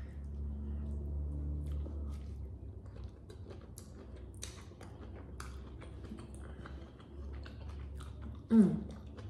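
Close-up eating sounds from a seafood boil: chewing, lip smacks and sucking at shellfish and sauce, with scattered wet clicks throughout. A short hummed sound comes near the end.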